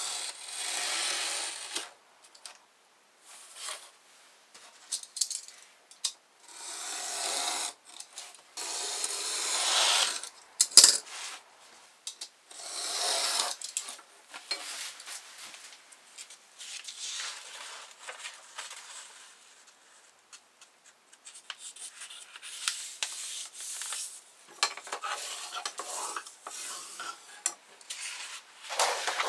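Snap-off utility knife drawn through heavy decorative paper along a steel ruler: several long scraping cut strokes of a second or two each, with one sharp click a little before halfway. In the second half, softer paper rustling and rubbing as the cut sheets are handled and folded.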